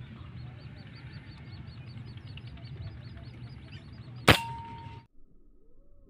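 Air rifle firing a single shot about four seconds in, a sharp crack over a steady low background hum. A thin ringing tone hangs after it until the sound cuts off abruptly, and then a bird cooing faintly.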